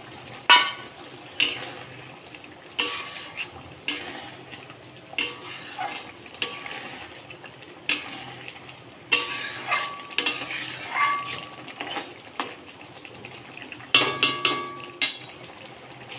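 A metal spatula stirring a frying masala in a pan: irregular scraping and clinking strikes against the pan, about a dozen of them, over a faint sizzle.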